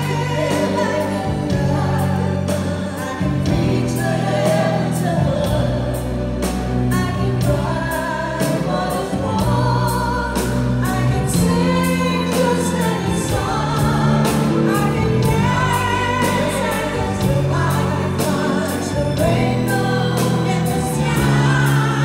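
A woman singing a pop ballad live into a handheld microphone over a band, her voice wavering with vibrato on held notes, with sustained bass notes and a steady drum beat underneath.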